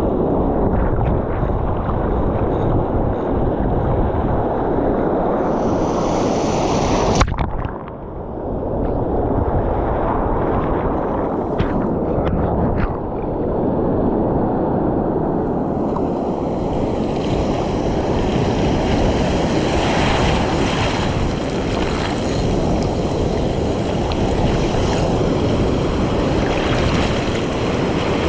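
Surf washing over a rocky shoreline with strong wind buffeting the microphone, a dense steady rumble and hiss. A single sharp knock comes about seven seconds in.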